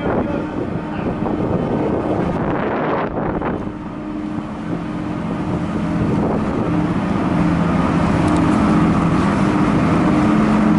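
Car ferry's engines droning on the vehicle deck: a steady low rumble with a hum that grows a little louder in the second half, with wind on the microphone.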